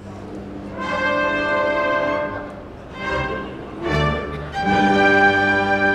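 Symphony orchestra playing two long held chords, with a softer passage between them about halfway through.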